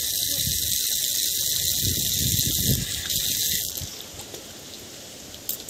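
Steady hiss of running water that cuts off abruptly about three and a half seconds in.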